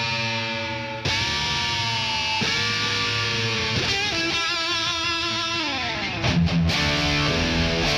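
Recorded lead electric guitar: sustained notes that bend up, a wavering vibrato, then a long downward slide about five seconds in. After that it goes into a louder rhythm part with steady low notes.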